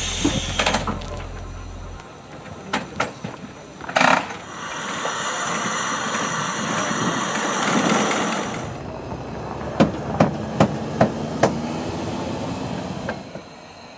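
A Sentinel steam waggon hissing steadily for about four seconds, the hiss cutting off suddenly. Then come five sharp knocks in quick succession from a tool being worked on the rear chain-drive sprocket under the waggon.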